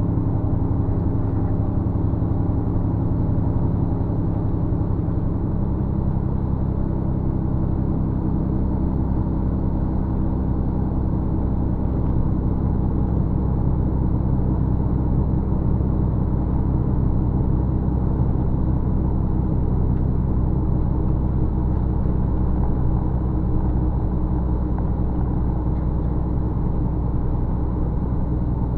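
Steady low drone of engine and road noise from inside a moving bus, unchanging throughout.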